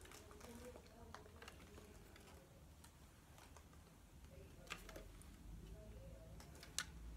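Near silence, with a few faint plastic clicks and taps from a clear plastic case being fitted onto an instant camera.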